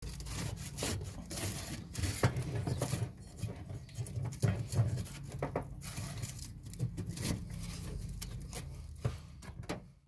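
A hand rubbing over foil-wrapped heater exhaust pipe close to the microphone. Irregular rubbing, light crackling and small knocks play over a low handling rumble.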